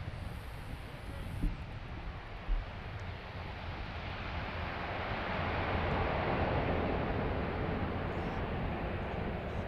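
Four Rolls-Royce AE 2100 turboprop engines of a C-130J-30 Super Hercules at takeoff power as it lifts off and climbs away, a steady noisy drone that swells to its loudest about six seconds in and then eases slightly. Two brief low thumps come about one and a half and two and a half seconds in.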